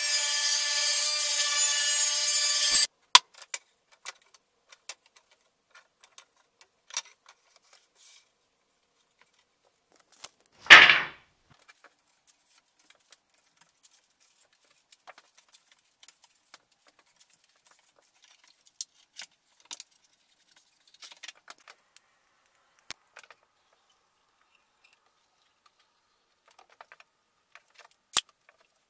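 Table saw cutting a bevel along a narrow wooden strip, its spinning blade giving a loud steady whine that stops abruptly about three seconds in. Then only light handling sounds on a workbench: scattered clicks and taps of wooden strips, one short loud rasp about eleven seconds in, and a sharp click near the end.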